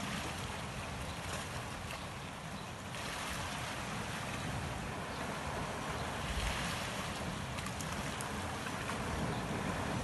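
Sea waves washing over a rocky shore, a steady rush of surf with wind gusting on the microphone as a low rumble.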